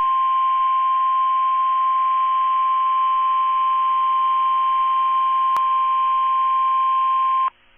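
NOAA Weather Radio warning alarm tone: one steady high tone, near 1 kHz, over radio hiss, with a click about five and a half seconds in. It cuts off sharply near the end. The tone is the alert that a tornado warning broadcast follows.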